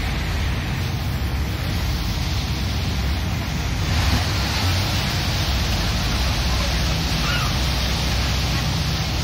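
Thames Clipper passenger boat under way: a steady low engine drone under a rush of water and wind, which gets louder about four seconds in.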